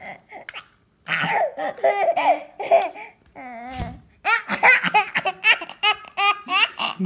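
Baby laughing, with a quick string of short laughs over the last three seconds.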